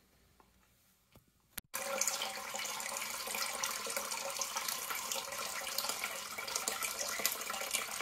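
Hot tap of a kitchen mixer running on full, water pouring through a flow-measuring cup and splashing into the sink, starting about two seconds in after a click. The flow is poor: the combi boiler's hot water flow has dwindled, which the boiler maker suggested comes from a swollen O-ring in the flow regulator.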